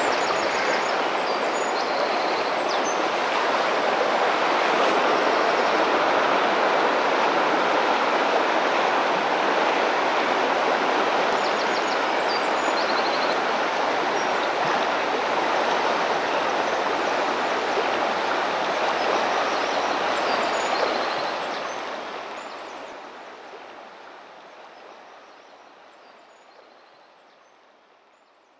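Fast river current rushing steadily around a wading angler, with faint high chirps now and then; the sound fades out over the last several seconds.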